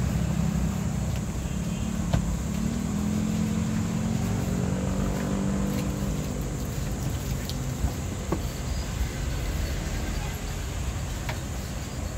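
A motor vehicle engine running, its pitch drifting up and down and fading toward the end, with a few faint clicks.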